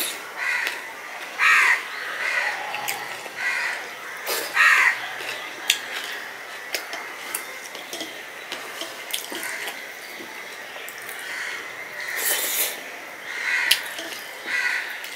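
Eating with the fingers from a steel plate: light clicks and scrapes of fingers mixing rice on the metal, along with chewing. A few short, harsh calls stand out in the first five seconds.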